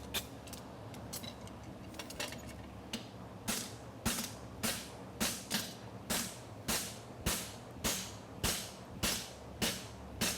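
Farrier's hammer striking a hot steel bar shoe on an anvil while shaping the toe bend. A few light blows come first, then steady even blows about every half second from a few seconds in. A steady low hum from a cooling fan runs underneath.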